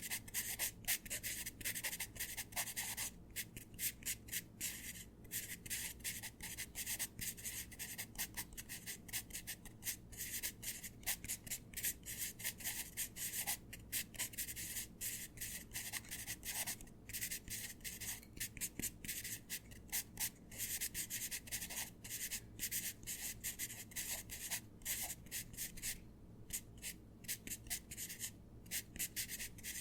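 Pencil writing on paper: quick, irregular scratching strokes of graphite on paper with brief pauses between words.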